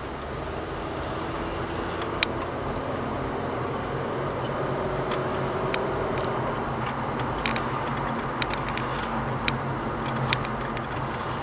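A car driving along: steady engine and road noise, with a handful of sharp, irregularly spaced clicks or rattles.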